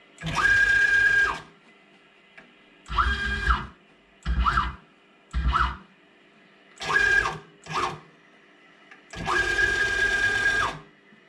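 Stepper motors of a CNC-converted Grizzly G0704 milling machine driving the axes in seven short moves, each a whine that rises in pitch, holds and falls as the move speeds up and slows down. The longest moves come first and last; the shorter ones in between only rise and fall.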